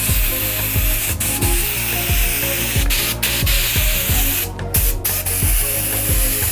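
Airbrush spraying paint, a steady hiss in passes that break off briefly several times, over background music with a steady beat.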